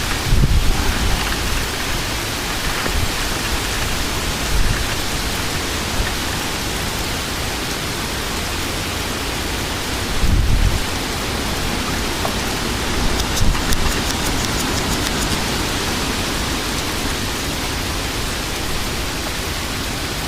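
Heavy rain and strong wind in a severe thunderstorm make a steady rushing hiss. Brief low rumbling surges come just after the start and about ten seconds in, with a smaller one about four and a half seconds in.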